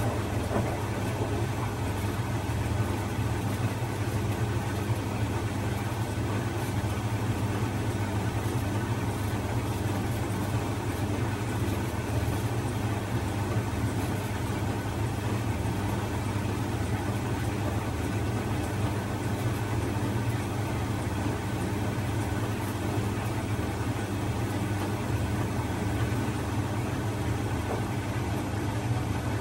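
Bosch front-loading washing machine running, its drum motor giving a steady low hum as the drum turns the laundry.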